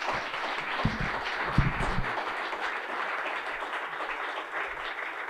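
Audience applauding steadily, with a few low thumps in the first two seconds.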